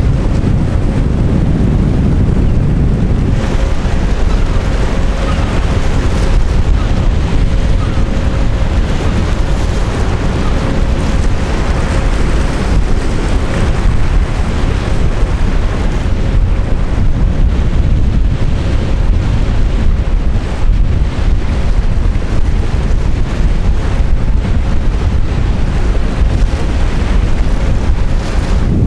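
Wind buffeting the microphone: a loud, steady low rumble with a noisy hiss above it. A faint steady hum runs underneath, starting a few seconds in and fading near the end.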